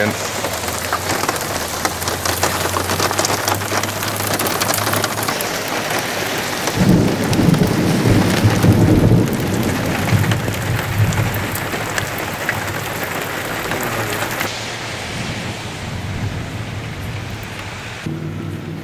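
Heavy rain falling steadily on pavement, with crackling drops. About seven seconds in a long rumble of thunder swells, loudest for a few seconds, then fades away.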